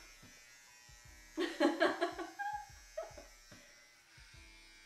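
Electric hair clippers buzzing steadily while shaving a head. About a second and a half in, a brief louder vocal sound cuts in over the hum.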